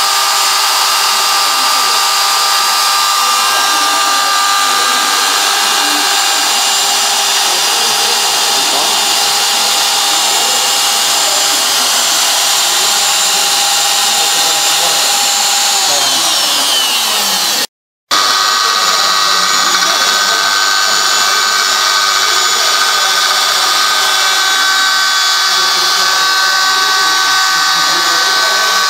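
4-axis CNC router running: a steady motor whine made of several held tones over a hiss, some of them gliding down in pitch about 16 seconds in. The sound cuts out for a moment near 18 seconds, then the steady whine resumes.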